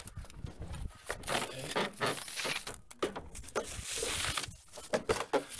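Plastic wrapping being pulled and crumpled off a vinyl fence piece: irregular crinkling and tearing, busiest from about a second in.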